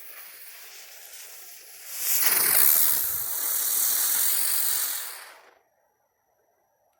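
Megabanger Sunflower spinning firework hissing: a steady hiss, then about two seconds in a much louder, wavering rush as it spins up throwing sparks, cutting off suddenly about five and a half seconds in as it burns out.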